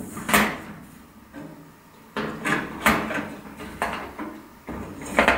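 A small screwdriver working the thin sheet-steel tabs inside an IKEA Helmer drawer cabinet, bending them down: a string of sharp, irregular clicks and taps, about half a dozen.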